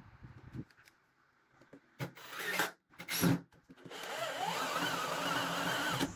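Woodworking sounds: two short scraping bursts, then an electric power tool's motor spinning up in pitch and running steadily with a slight wavering whine, cut off suddenly near the end.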